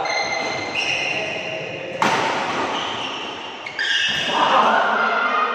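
Badminton rally in a large echoing hall: rackets striking the shuttlecock, with one sharp hit about two seconds in, and short high squeaks of court shoes on the floor.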